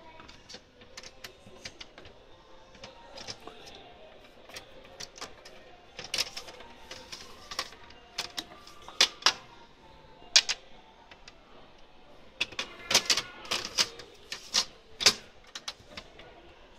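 Panasonic J Concept refrigerator doors and drawers being opened and closed: irregular sharp clicks and clacks of plastic and latches, coming in clusters, the loudest knocks about halfway through and again in the last few seconds.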